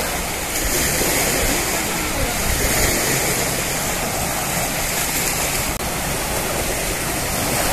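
Steady rushing wash of small waves breaking on a sandy shore, with indistinct voices of people on the beach.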